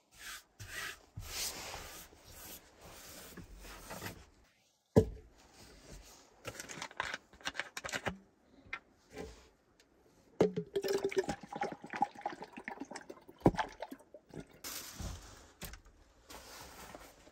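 Water sloshing and pouring in a plastic water bottle as it is handled on a wooden counter, among rustling and handling noises. Two sharp knocks stand out, one about five seconds in and another later on.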